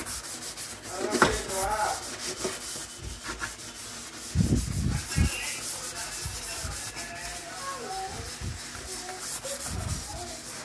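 A sponge scrubbing a wet stainless steel sink coated in cleanser: a run of quick rubbing strokes against the metal, with a few dull knocks about halfway through.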